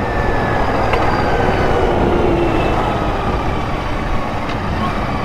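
Royal Enfield Continental GT650's 648 cc parallel-twin engine running steadily as the bike cruises at highway speed, under a dense, steady rush of wind and road noise.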